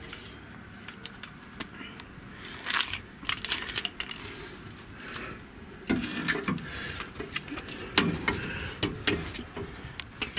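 Scattered metallic clicks, clinks and knocks from tools and a shock absorber being handled and fitted under a pickup's rear axle, thicker about six and eight seconds in.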